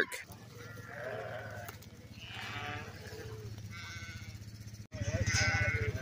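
Sheep and lambs bleating: about three drawn-out calls a second or so apart, over a low steady hum that gets louder about five seconds in.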